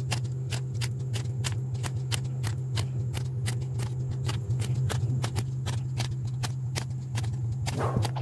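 Scissors snipping paper in quick, short cuts, about four snips a second, cutting a row of small notches along the edge of a paper strip. A steady low hum runs underneath.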